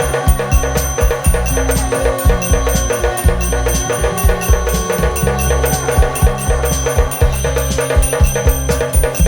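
Electric mini aarti machine beating its small nagada drum in a fast, steady, repeating rhythm, with a steady metallic ringing over the drum strokes.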